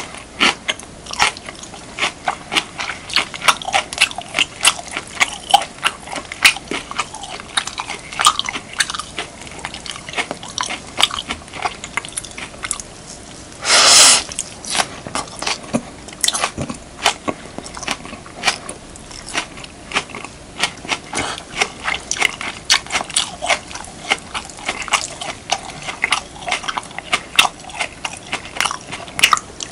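Close-miked mouth sounds of someone eating beef, kimchi and rice: a quick run of wet smacks and clicks of chewing. About halfway through comes one louder, longer bite.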